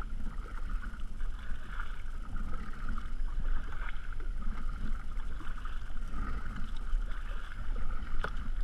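Water lapping against the hull of a kayak drifting on choppy water, with wind buffeting the microphone in a steady low rumble.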